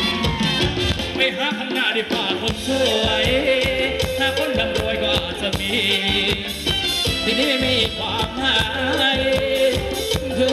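Live band playing upbeat Thai ramwong dance music in a cumbia style, with a steady driving beat and a voice singing over it.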